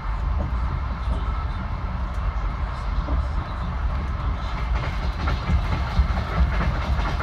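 Local passenger train running at speed, heard from inside the carriage: a steady low rumble, with faint wheel clacks over the rail joints in the second half.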